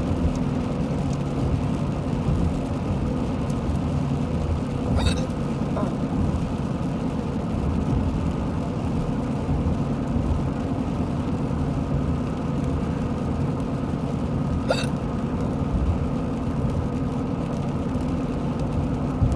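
A woman hiccuping, with short sharp hics about five seconds in (a fainter one just after) and about fifteen seconds in; they were brought on by deliberate burping. Behind them runs the loud, steady drone of the car being driven.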